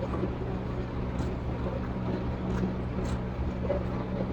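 A steady low mechanical hum, with a few faint clicks and smacks of eating and chewing.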